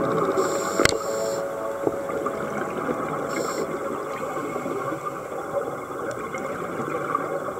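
Steady underwater noise from a dive, a dense hiss with a sharp click about a second in.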